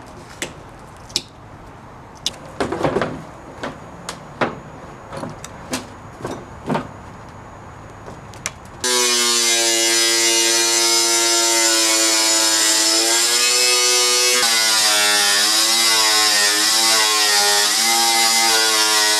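A few scattered taps and clicks of handling. Then, about nine seconds in, a power tool starts abruptly and runs with a loud whine. Its pitch wavers as it cuts into the car's front fender.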